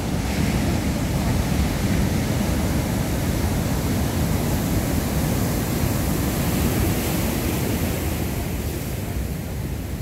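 Large ocean surf breaking and rushing beside a pier, heard as a steady roar mixed with wind buffeting the microphone. It eases slightly near the end.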